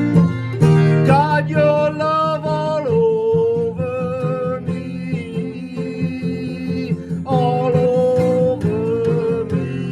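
Acoustic guitar strumming a steady chord accompaniment, with a voice singing a held, sliding melody line over it from about a second in.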